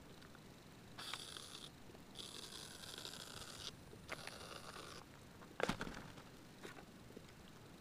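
Aerosol whipped-cream can (Reddi-wip) sprayed upside down in three short hissing bursts as the cream spurts out, followed by a sharp knock.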